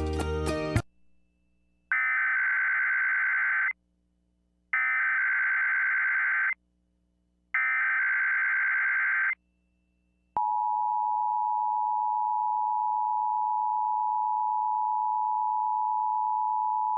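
Emergency Alert System SAME header: three identical bursts of warbling digital data tones, each about two seconds long with a second's gap between them. About ten seconds in comes the EAS two-tone attention signal, a steady dual tone of 853 and 960 Hz, announcing a coordinated monthly test.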